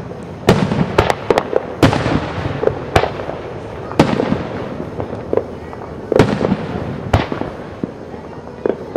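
Aerial fireworks shells bursting: a string of sharp bangs at irregular intervals, roughly one a second, each trailing off in an echo.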